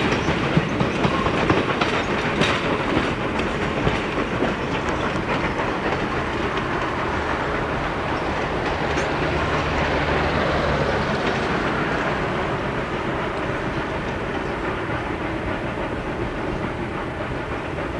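Passenger cars of a steam-hauled train rolling on the rails, a steady wheel-and-rail rumble that slowly grows fainter as the train moves away.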